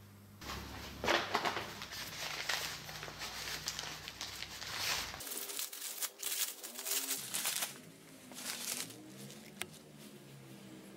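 Crumpled paper wrapping crinkling, rustling and tearing in irregular handfuls as it is pulled off chrome car mirrors by hand.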